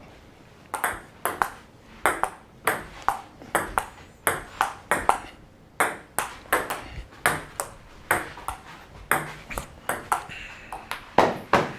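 Table tennis rally: the celluloid-type ball clicking sharply off paddles and table, about three hits a second in a long, unbroken exchange that starts under a second in.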